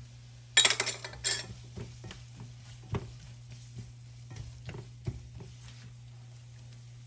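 Silicone spatula stirring and scraping chopped onion, green chilli and ginger paste frying in butter in a non-stick frying pan, with a short louder burst of scraping and light sizzling about a second in, then soft scattered scrapes and taps. A steady low hum runs underneath.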